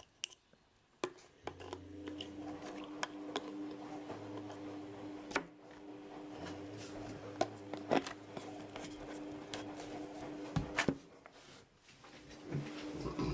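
Clear plastic blister packaging being handled, with scattered sharp plastic clicks and knocks, over a steady low hum.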